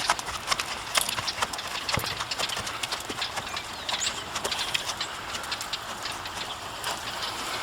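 Hoofbeats of Rocky Mountain Horses being ridden: a run of irregular clip-clops, denser in the first few seconds and thinning out later.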